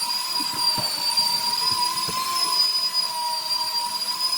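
Electric power tool motor running at full speed, a steady high-pitched whine.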